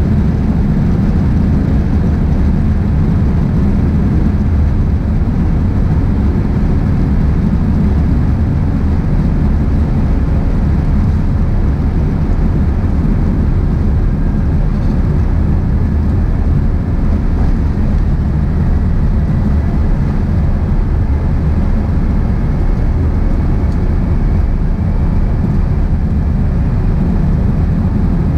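Loud, steady cabin rumble of an Airbus A350-900 on its take-off run, its Rolls-Royce Trent XWB engines at take-off thrust, heard from a seat behind the wing. A faint whine rises slowly in the last several seconds.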